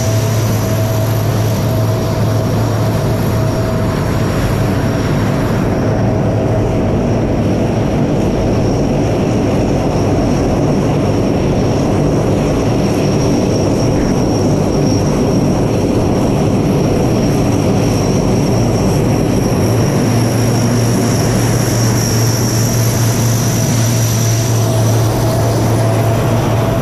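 C-130 Hercules four-engine turboprops running as the transports taxi: a loud, steady propeller drone with a high whine above it.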